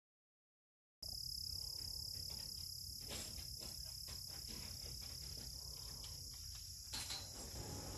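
Silence for about a second, then a steady high-pitched chorus of insects, crickets or cicadas, droning without a break, with a couple of faint taps.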